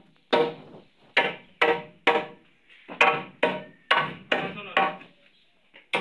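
Hammer blows struck by hand, about ten sharp strikes that come in irregular pairs and runs, each with a short ringing tone, with brief pauses between the runs.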